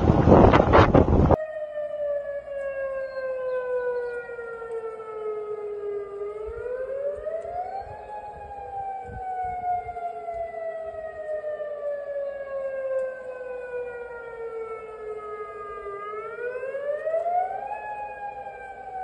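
Outdoor tsunami warning siren sounding a slow wail: the tone sinks slowly for several seconds, then climbs quickly, twice over. It opens with a burst of loud wind noise on the microphone that cuts off after about a second and a half.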